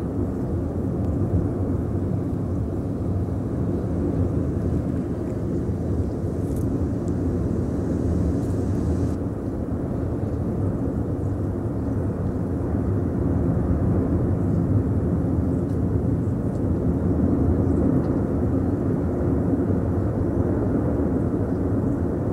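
Cumbre Vieja volcano erupting, giving a steady, loud low rumble that goes on without a break.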